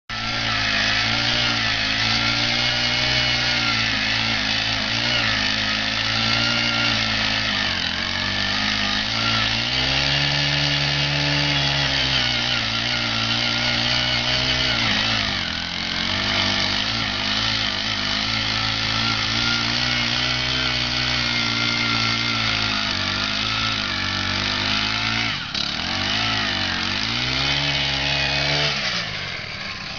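Gas-powered one-man earth auger's small two-stroke engine running hard as the auger bores into lawn soil, its pitch sagging and recovering twice as the bit loads up. It drops back near the end.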